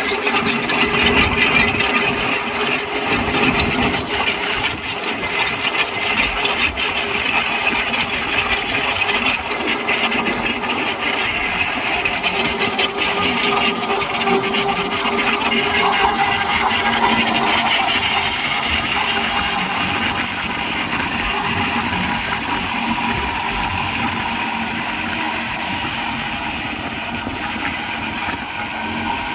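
Massey Ferguson 9500 Smart tractor engine running steadily under load as it drives a pipeline trenching machine, with a continuous mechanical clatter of the digging blades and soil.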